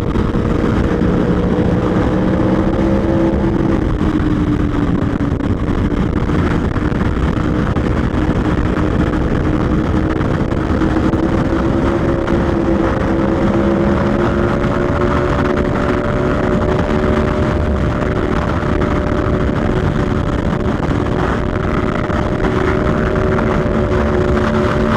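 Onboard sound of an Aprilia Tuono V4 1100 Factory's V4 engine running steadily at speed, its pitch drifting slowly down and then up with the throttle through fast corners, under a rush of wind.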